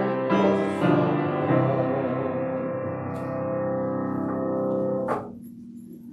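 Piano playing the close of a hymn, ending on a long held chord that fades and then stops abruptly about five seconds in.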